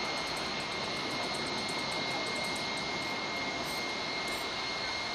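Steady machinery noise: an even rushing sound with a constant high-pitched whine over it, without a break, like a jet engine or turbine running.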